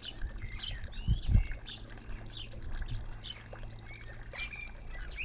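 Songbirds chirping and whistling in short repeated calls, over a steady low hum from a helicopter circling at a distance.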